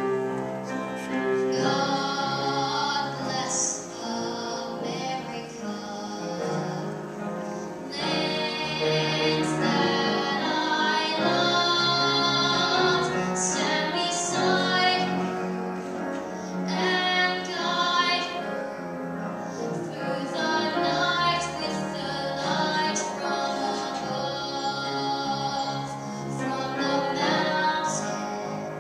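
A solo voice singing a slow, classical-style song with long held notes and vibrato over instrumental accompaniment, heard from the audience seats of a large chamber.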